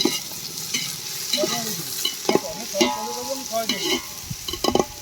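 Sliced onions frying in hot oil in a pan, a steady sizzle broken by the clacks and scrapes of a spatula stirring them, the loudest about two, three and near five seconds in.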